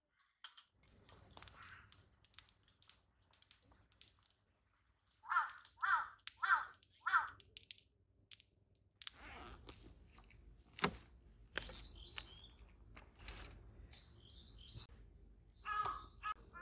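A crow cawing four times in quick succession about five seconds in, over the scattered crackle and clicks of a freshly lit wood fire. Small birds chirp briefly later, and another crow calls near the end.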